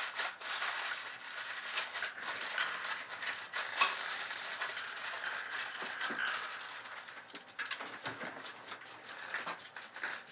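Aluminum foil crinkling and crackling as it is folded and pressed tight around a baking dish. It is a dense run of small crackles that thins out near the end.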